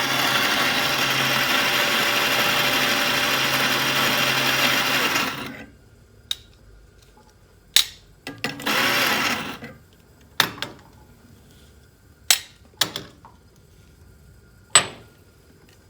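Electric coffee grinder grinding espresso beans: a steady motor run of about five and a half seconds, then a second short burst a few seconds later. Several sharp knocks and clicks follow.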